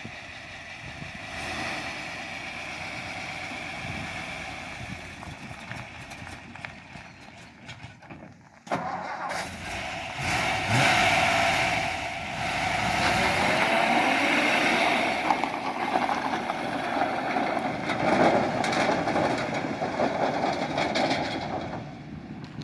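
Old Ford F-250 pickup's engine running as it pulls an empty flatbed trailer across a dirt yard. The sound grows louder in the second half as the truck passes close by.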